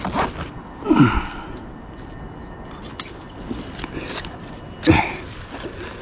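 A person walking through woodland: scattered footsteps and rustling, with a short vocal sound falling in pitch about a second in, a sharp click near the middle and another short vocal sound near the end.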